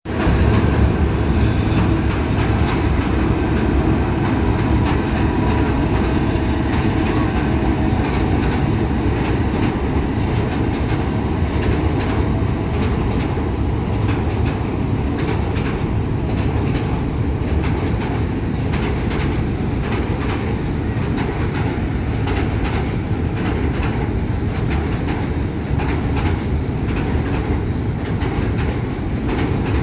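Passenger train crossing a steel truss railway bridge: a steady rolling noise of wheels on rails. The clickety-clack of wheels over rail joints becomes more distinct about halfway through.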